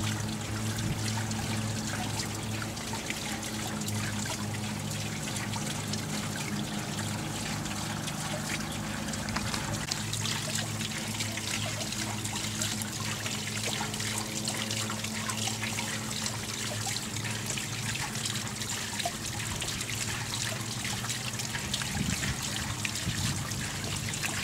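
Water falling into a garden fish pond, trickling and splashing steadily, with a steady low hum underneath.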